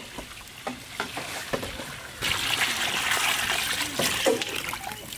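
Water poured from a steel pot into a large iron wok of fish pieces, splashing and hissing for about two seconds starting about two seconds in, with a few light knocks around it.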